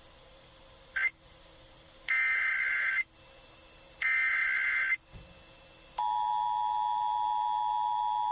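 Emergency Alert System broadcast alert opening: a short chirp, then two one-second bursts of SAME header data tones a second apart. About six seconds in, the steady two-tone EAS attention signal begins, announcing the next tornado warning.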